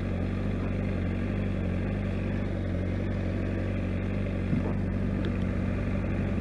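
Honda CBR600RR's inline-four engine running steadily at low revs as the motorcycle rolls slowly, with no revving.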